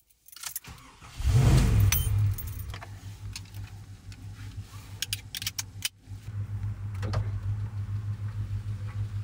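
1988 Jeep Wagoneer's engine starting about a second in, briefly louder, then settling into a steady low run. Keys jangle and a seatbelt buckle clicks over it.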